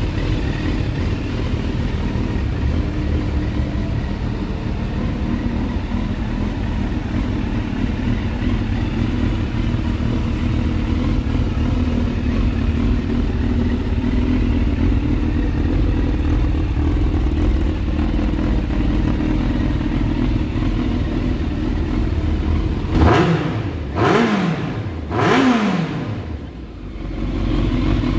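Yamaha FZS600 Fazer's 600 cc inline-four engine running through an SP Engineering aftermarket exhaust, idling steadily. Near the end the throttle is blipped three times in quick succession, each rev rising sharply and falling back before the engine settles to idle again.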